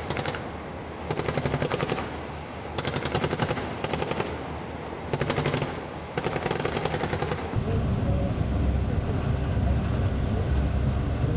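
Automatic machine-gun fire in about six short bursts, each a rapid string of shots lasting under a second, some louder than others. About seven and a half seconds in the firing cuts off abruptly and a steady low rumble takes over.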